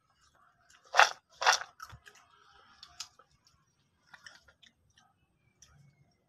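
Crunchy orange snack sticks crunching: two loud crunches about a second in, then softer scattered crackles.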